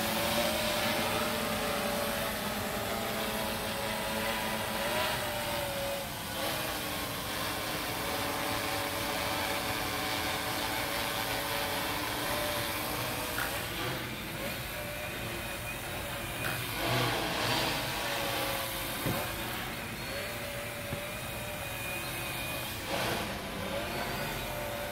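Six-rotor drone's electric motors and propellers humming in flight, the pitch of the hum drifting up and down as the motors change speed through the roll manoeuvres.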